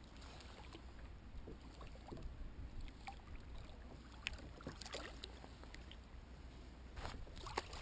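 Quiet water lapping against a kayak's hull, with a few light clicks and small splashes around the middle and near the end.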